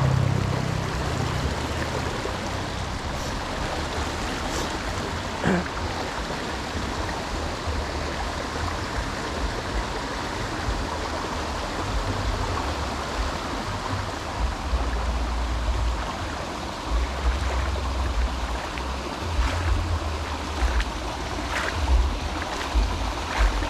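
Stream water flowing steadily. From about fourteen seconds in, irregular low rumbling bumps on the microphone join it, with a few faint clicks.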